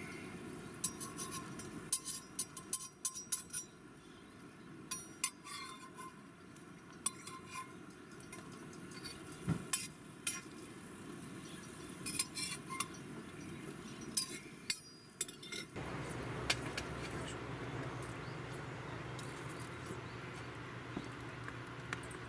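Metal spatula clinking and scraping against a small steel frying pan while an omelette is turned and folded: scattered sharp clicks and taps. About two-thirds through it gives way to a steadier background noise with only a few light taps.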